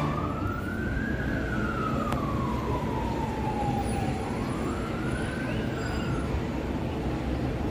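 Emergency vehicle siren wailing in a slow rise and fall, climbing, sinking and climbing again before fading out about six seconds in, over steady background noise.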